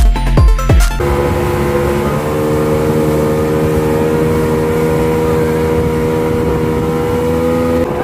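Towing motorboat's engine running at a steady speed under the load of the banana boat: an even, unchanging drone over rushing water and wind noise. A few heavy thumps come in the first second.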